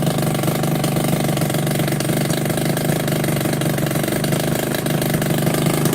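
Two-stroke scooter engine idling steadily and loudly on its first run after a top-end rebuild and a new expansion chamber. The owner suspects an abnormal noise coming from the cylinder or the chamber inlet rather than from the silencer.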